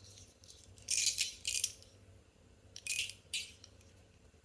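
Metal fidget toy being handled and flipped over, its parts clicking and rattling in two short bursts, about a second in and again near three seconds.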